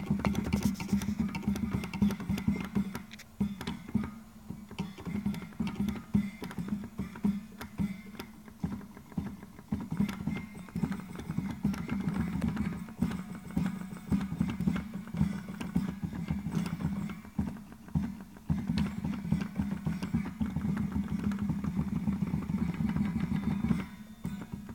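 MIDI-driven pipe organ playing music, with a dense, rapid clicking from its Peterson 60-ohm solenoid chest magnets as they snap the valves open and shut for each note.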